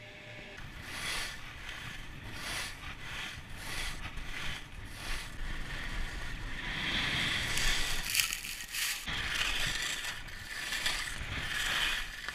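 Skis sliding and turning on groomed snow: a run of short hissing scrapes, then from about six seconds in, longer, louder scrapes as the edges carve.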